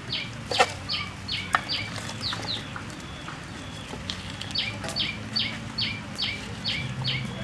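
A bird calling in a run of short falling notes, about two or three a second. The run pauses for a couple of seconds partway through, then starts again. Two sharp clicks stand out in the first second and a half.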